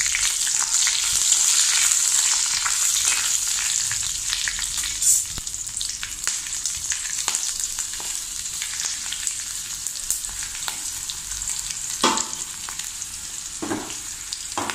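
Slit green chillies and curry leaves sizzling in hot oil in a kadai for a tempering. The hiss is steady and eases after about four seconds, with a few sharp clicks.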